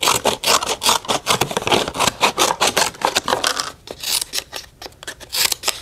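Scissors snipping through stiff rawhide folded in half, a quick run of short crisp cuts, several a second, with a brief lull about four seconds in.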